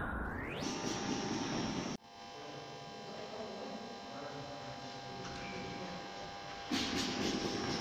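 Steady electrical hum with a noisy hiss beneath it. Both cut down suddenly about two seconds in and grow louder again near the end.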